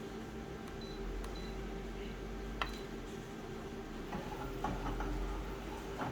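Steady low background hum, with one sharp click about two and a half seconds in and a few softer clicks and rustles near the end.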